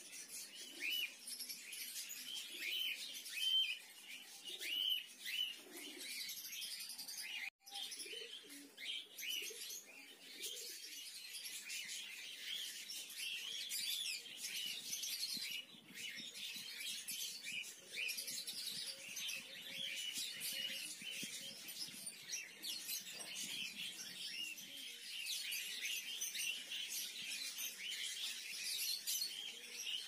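A colony of budgerigars chattering together, a dense, unbroken stream of many overlapping short chirps.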